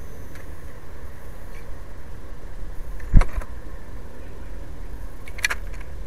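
Steady low rumble on the microphone with one loud sharp knock about three seconds in. Near the end comes a short cluster of clicks as a blue tit lands on the glass seed tray.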